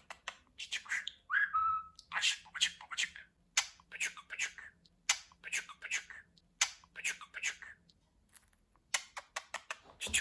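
Budgerigar chattering and warbling: a run of short, scratchy chirps and clicks, with one short whistled note about a second and a half in.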